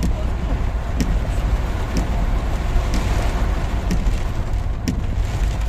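Car driving, heard from inside the cabin: steady engine and road rumble, with a short click about once a second.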